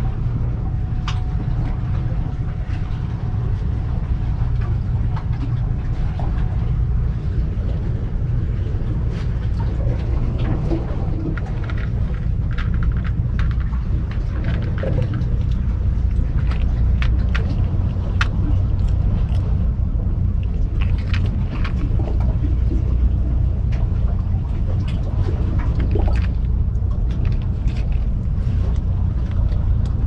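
Steady low rumble throughout, with scattered short sharp clicks from about ten seconds in that fit kittens crunching dry cat food from a dish.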